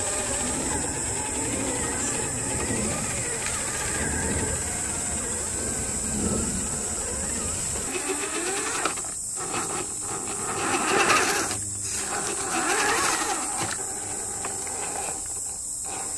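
Electric motor and geared drivetrain of an Axial SCX10 III Jeep Gladiator 1/10-scale RC crawler whining as it crawls over rock. The pitch rises and falls with the throttle, and the whine cuts out briefly about three times in the second half, over a steady high hiss.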